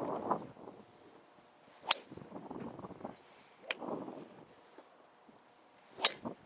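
Three sharp cracks of a golf wood's metal head striking balls off a tee, about two seconds apart, with gusts of wind buffeting the microphone around them.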